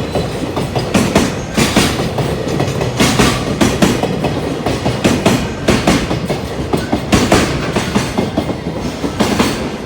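Container freight train passing close by, its wagon wheels clacking over rail joints in repeated pairs about every second over a steady rumble.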